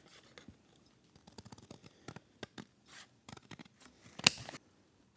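Scissors snipping through cardboard to cut out a template: a run of short cuts, the loudest about four seconds in, after which the cutting stops.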